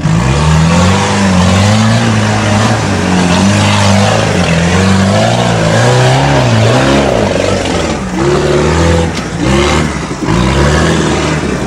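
Toyota Hilux off-road competition truck's engine revving hard under load as it climbs a rocky course, the revs rising and falling again and again.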